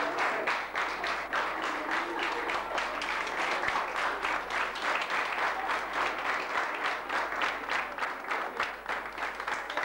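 Audience applauding; in the second half the clapping falls into an even rhythm of about three claps a second.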